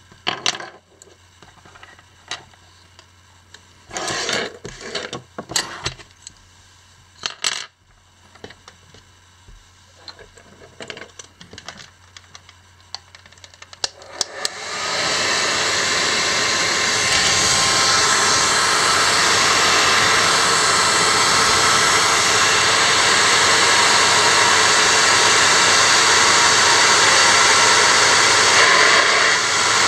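A few scattered clicks and knocks of handling, then about halfway in a hair dryer switches on and runs steadily. It is blowing hot air onto the Xperia Z1's glass back to soften the adhesive that holds it.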